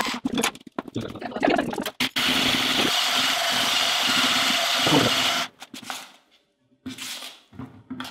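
Braun electric hand mixer beating soft butter and erythritol into a thick creamed mass. The motor runs in stretches with short breaks, steadiest from about two to five and a half seconds in.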